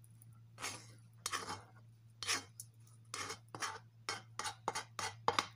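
A cooking utensil scraping against a metal frying pan as the cooked shredded chicken is pushed out onto a plate, in a series of short scrapes that come quicker toward the end, over a steady low hum.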